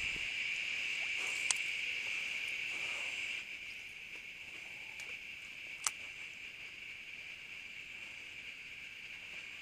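Dusk insect chorus, a steady high-pitched trilling that drops quieter about three and a half seconds in, with two sharp clicks along the way.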